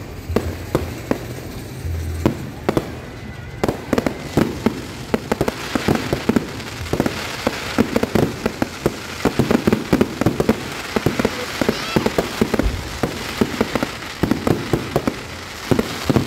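Fireworks going off: an uneven, rapid string of bangs and pops that thickens after about four seconds into a dense, crackling barrage.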